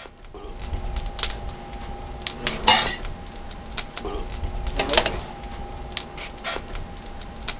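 Sound-effects track of a stainless-steel beer-bottle holder and glass bottle being handled: metallic clinks and small knocks, with two louder hits about two and a half and five seconds in, over a faint steady hum.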